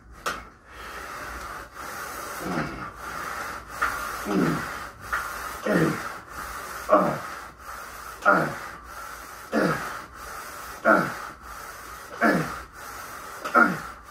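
A man breathing out hard with each rep of a fast bench-press burnout set: a short exhale falling in pitch about every second and a quarter, about ten in all, over a steady hiss.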